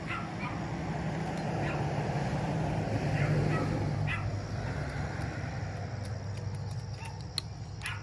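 A dog gives a few short barks, faint and some distance off, over the low engine rumble of a vehicle passing on the street, which swells to its loudest about three seconds in and then fades.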